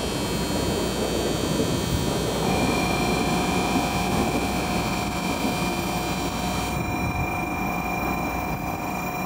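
N700 series Shinkansen train approaching on curved track into the station, with a steady rumble of its running and a set of high-pitched whining tones that cut off about seven seconds in. Two lower steady tones come in about two and a half seconds in.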